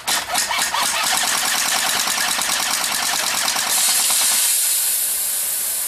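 Automatic AK-style BB rifle firing a rapid full-auto burst of closely spaced shots. About four seconds in, a steady high hiss takes over as gas jets out of the pierced aerosol deodorant can.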